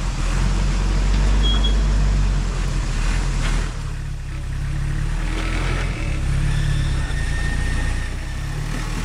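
Off-road 4x4's engine running under load as it crawls over rock, dipping briefly about four seconds in.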